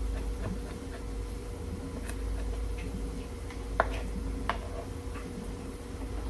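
Kitchen knife chopping bell peppers on a cutting board: irregular light taps, with two sharper knocks nearly four seconds in.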